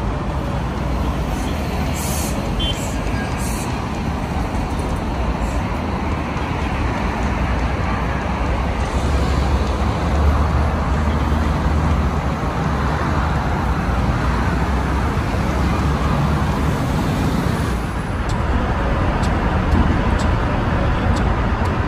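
Steady road-vehicle noise: a constant low rumble under a broad hiss, with a few faint clicks about two to three seconds in.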